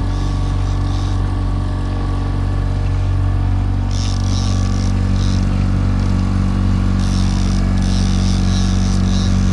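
Evinrude outboard motor running steadily at trolling speed. A higher hiss comes in twice, about four seconds in and again about seven seconds in.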